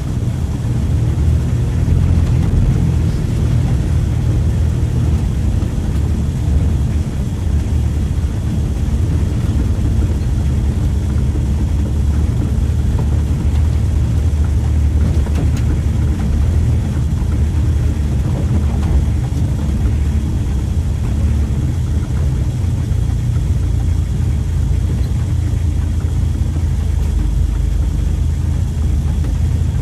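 Mitsubishi L300 pickup engine running steadily while driving loaded, heard from inside the cab, with a constant low rumble.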